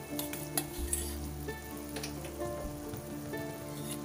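Crushed jaggery melting in hot ghee in a steel pan, bubbling and sizzling, with a metal spoon clinking against the pan a few times as it is stirred. Soft background music with held notes plays underneath.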